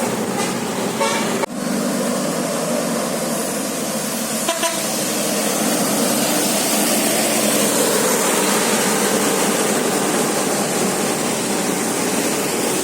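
Bus musical air horn (telolet) sounding short notes, cut off sharply about a second and a half in, followed by loud steady bus engine and road noise.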